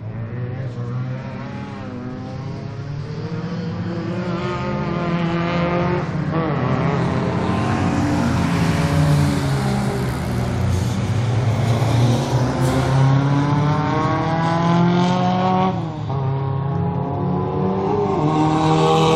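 Race car engines accelerating hard past at close range, revving with the pitch climbing, briefly dropping at each gear change, and climbing again. The sound grows louder as the cars close in, with short breaks about six seconds in and again later.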